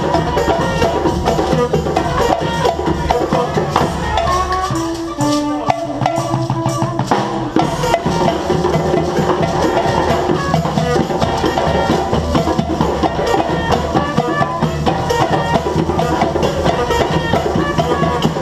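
Live street band playing, drums and percussion keeping a steady beat, with a few held pitched notes about five seconds in.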